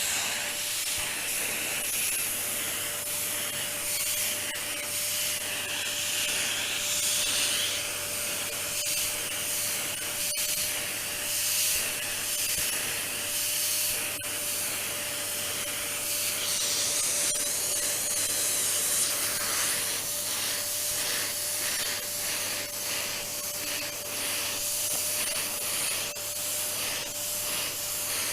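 Vacuum cleaner running steadily with a constant whine, its nozzle rubbing over a surface in repeated strokes that are most evident in the second half.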